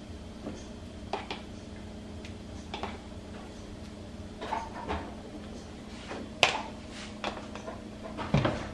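Spoon scraping and tapping inside a plastic jug as baked beans are served onto plates: scattered light clinks and scrapes, the sharpest about six and a half seconds in, over a steady low hum.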